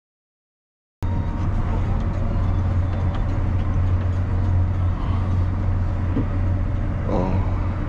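John Deere 7R tractor's six-cylinder diesel engine running steadily, heard from inside the cab as a constant low drone. It cuts in suddenly about a second in.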